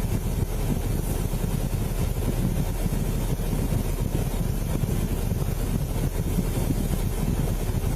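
Steady low rumble with no clear pitch, picked up on a body-worn camera's microphone.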